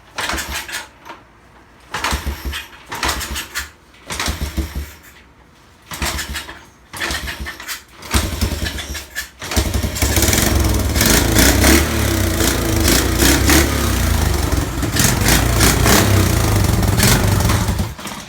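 1972 Honda XL250's single-cylinder four-stroke engine being started after more than 35 years laid up: a few short bursts as it is turned over, then it catches about nine seconds in and runs steadily for about eight seconds before stopping near the end.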